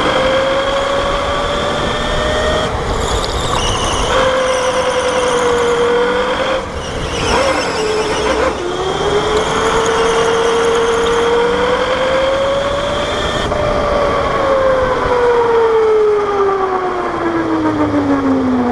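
Electric go-kart motor whining under way, its pitch rising and falling with speed and gliding steadily down over the last few seconds as the kart slows. Two short stretches of hiss come in about three and seven seconds in.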